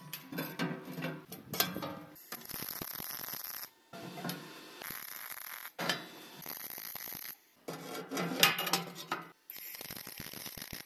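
Sheet-steel panels being handled and fitted, with metallic clinks, knocks and scraping, alternating with short stretches of steady arc-welding crackle as panels are tack-welded. Each piece starts and stops abruptly.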